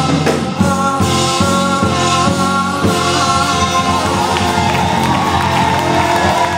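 Live band music with a steady beat, sustained chords and a singer's held, gliding notes.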